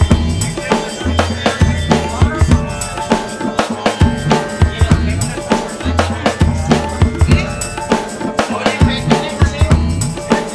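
Background music with a steady drum-kit beat and a recurring bass line.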